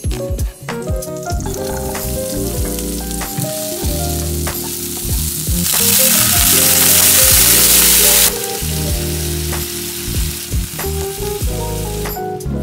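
Background music over a stir-fry in a wok. About six seconds in, water poured into the hot oil hisses loudly for two to three seconds, then dies back.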